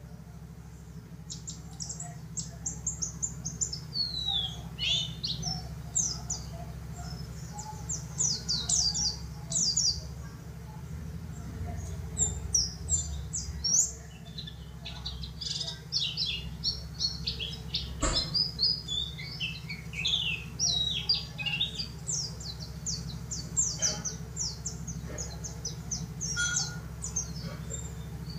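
Pleci dakun (yellow-breasted white-eye) singing: a fast, busy stream of high, short chirps and quick falling notes in bursts with brief pauses, over a steady low hum.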